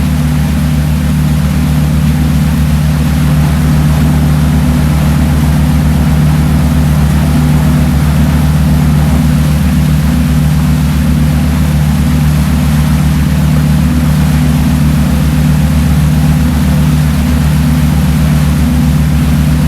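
Boat engine running steadily at constant speed: a loud, even, rapidly pulsing drone with no change in pitch.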